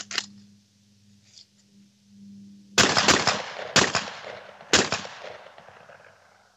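Three loud 12-gauge shotgun shots about a second apart, each trailing off in a long echo, heard over a video call.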